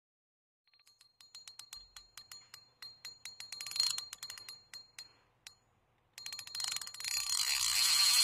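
Rapid mechanical ticking, like a ratchet, with a faint ring on each click; the ticks slow and stop about five seconds in. Then a rising hiss swells louder near the end, as a whoosh-type end-card sound effect.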